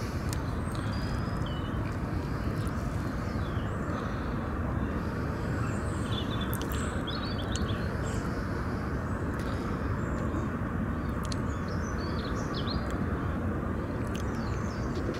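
Lakeside outdoor ambience: a steady low rumble with small birds chirping on and off throughout.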